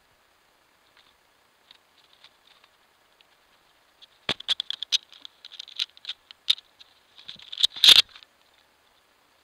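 Squirrel claws scrabbling and tapping on bark right at the camera: a few faint ticks, then about four seconds of rapid scratchy patter with sharp knocks, loudest as the animal passes in front of the lens near the end.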